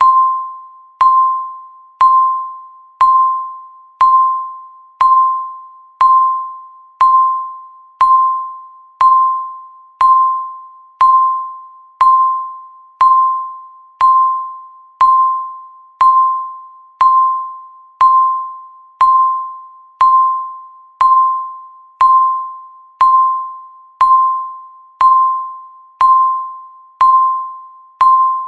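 Countdown timer beep: a single bell-like ding, one tone, sounding once every second and fading away before the next.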